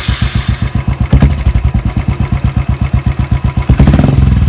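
Royal Enfield Classic's single-cylinder engine, freshly started, idling through an aftermarket Stunner chipped Gold Star-style silencer with a steady beat of about eight to nine exhaust pulses a second. It gets louder about four seconds in.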